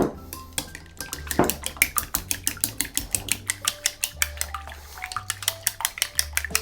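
Eggs being beaten in a bowl, the utensil clicking rapidly and evenly against the bowl, about six or seven strokes a second, after a sharp knock at the start.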